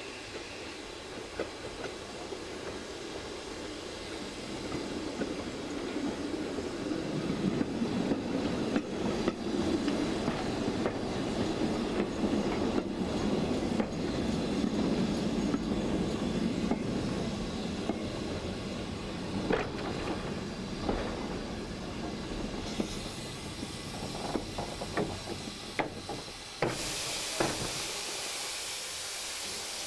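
Narrow-gauge Ffestiniog Railway carriage running behind a steam locomotive: the wheels rumble on the track, swelling in the middle, with clicks over rail joints. Near the end a steady hiss of steam from the locomotive starts suddenly.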